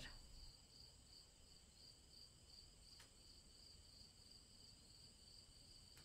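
Faint crickets chirping in a steady, pulsing high trill, with one faint click about three seconds in.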